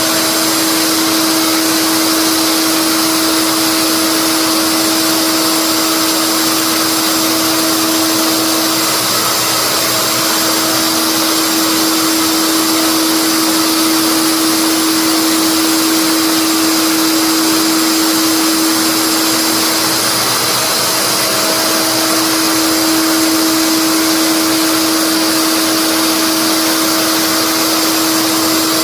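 Electric wood router running at full speed with a steady high whine, cutting a mortise for a latch.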